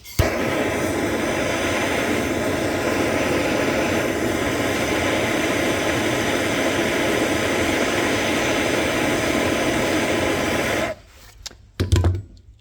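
Blowtorch flame running steadily, heating solder in a small cast iron pan. It lights abruptly at the start and cuts off about eleven seconds in, followed a second later by a short knock.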